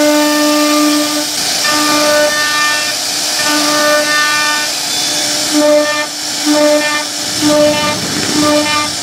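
CNC router spindle running at high speed and cutting grooves into a wooden panel: a high whine with a hiss of cutting. The whine is steady at first, then pulses on and off, more often in the second half as the bit makes a run of short cuts.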